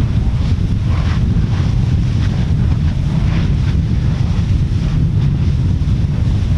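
Wind buffeting the microphone in a steady low rumble, over the irregular surging and splashing of molten lava churning and spattering at the edge of a lava lake.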